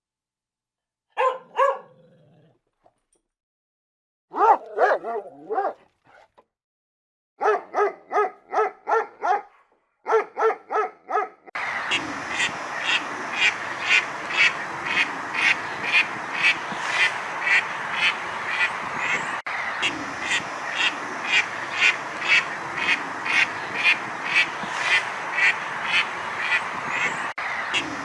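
Ducks quacking: first a few short calls and quick runs of quacks, then steady quacking about twice a second over a constant background hiss.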